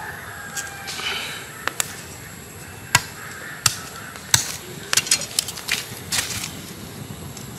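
Small wood fire crackling, with irregular sharp pops and cracks over a faint steady hiss.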